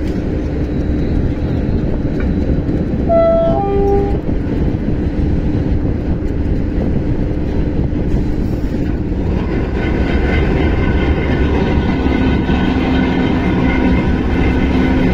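Diesel railway engine running steadily at close range, with a few brief pitched tones about three seconds in and a steady higher tone with overtones joining from about ten seconds.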